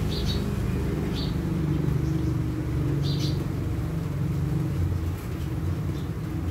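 Steady low engine hum, with three short bird chirps in the first few seconds.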